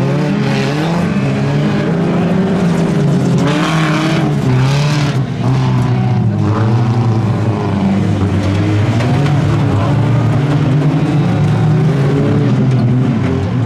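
Several racing stock-car engines of up to 1800 cc running hard together, their pitches rising and falling as the drivers rev and lift. About three to five seconds in, a rougher rushing noise rises over the engines.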